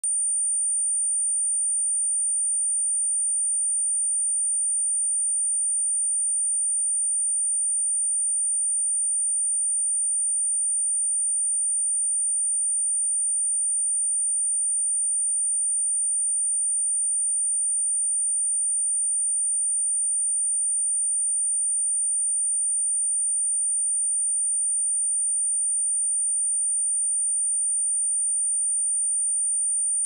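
A steady, unbroken 9044 Hz sine-wave test tone: a single constant high-pitched whistle. It is a speaker test tone, also played to shake water and dust out of a speaker.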